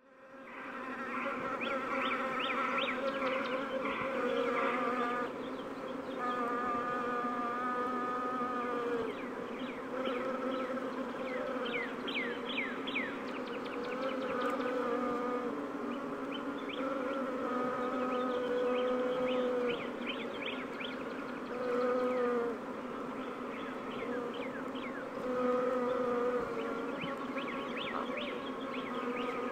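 Many bees buzzing together, a steady low hum with wavering higher tones that swells a little now and then. Short, high, falling chirps come through at intervals.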